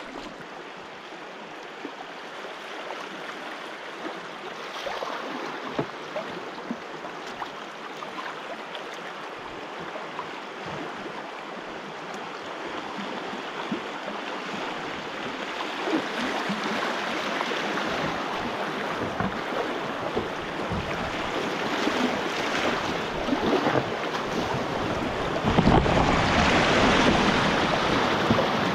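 Rushing river water around a canoe running riffles and small rapids, a steady rush that grows louder as the whitewater comes up, getting much louder about three-quarters of the way through. Wind buffets the microphone near the end.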